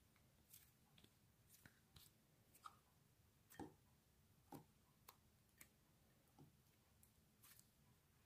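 Butter slime being squeezed and folded by hand, giving faint, irregular soft clicks and pops, about one or two a second.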